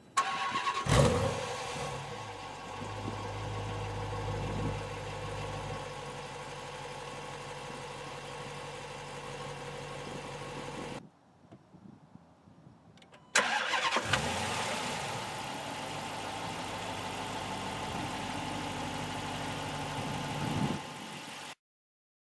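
2015 Dodge Challenger R/T's 5.7-litre Hemi V8 starting up with a short rev flare, then settling into a steady idle. About eleven seconds in the sound drops away. A couple of seconds later the engine starts again with another flare and idles on until near the end.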